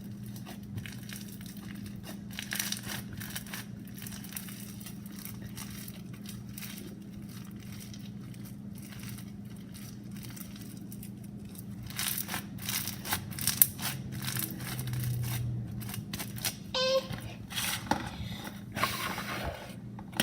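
Sticky foam slime being squished, stretched and pulled apart by hand: a run of crackles, pops and small tearing sounds, sparse at first and busier and louder in the last several seconds, over a steady low hum.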